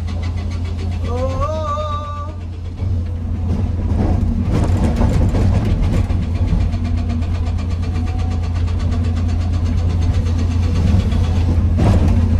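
Excavator's diesel engine running steadily, working harder and louder from about three seconds in, with bursts of clatter. A snatch of music with singing plays over it in the first two seconds.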